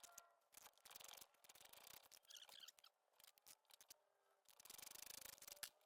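Near silence with faint scratchy handling noises in three short spells, typical of hands working small metal brake parts.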